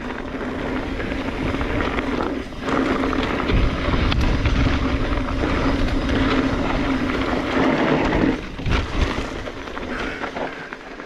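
Mountain bike descending a loose dirt trail: tyre rolling noise and rattle picked up by a chest-mounted GoPro, with a steady hum underneath. The hum stops about eight seconds in and the noise eases off toward the end.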